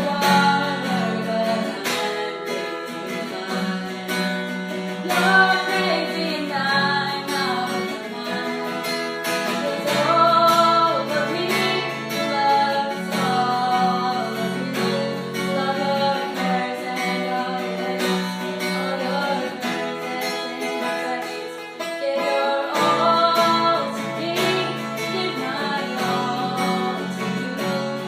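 Song with acoustic guitar accompaniment and a singing voice carrying the melody.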